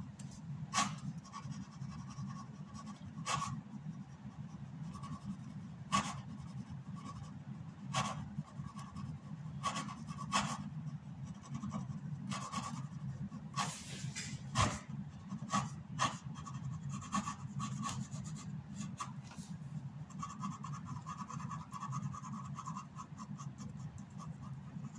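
Felt-tip ink pen scratching on paper in short, irregular strokes, with a quicker run of hatching strokes near the end, over a steady low hum.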